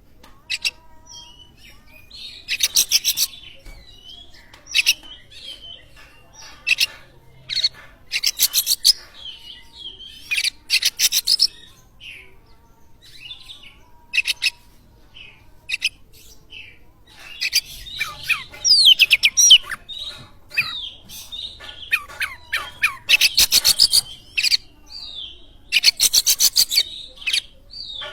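Oriental magpie-robin singing: varied whistled phrases broken up by loud bursts of fast, rattling repeated notes every second or two.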